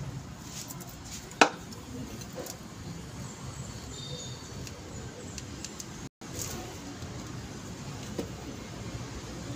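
Metal parts of a steering box clicking as it is handled, with one sharp clink about a second and a half in, over a steady low background hum.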